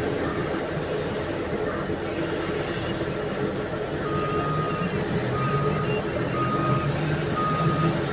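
Heavy diesel mining machinery running steadily, with a truck's reversing alarm starting about halfway in: a single-pitched beep about once a second, typical of a haul truck backing into position to be loaded.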